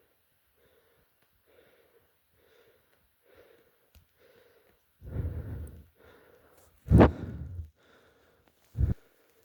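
A player breathing hard and fast through an airsoft face mask right at the microphone, with faint puffs about every two-thirds of a second. Louder blasts of breath or mask rubbing come about halfway through, then a sharp knock just after 7 s and another short thump near the end.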